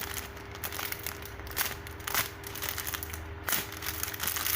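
Light crinkling and crackling of plastic as a squishy toy is handled, with scattered small clicks over a faint steady hum.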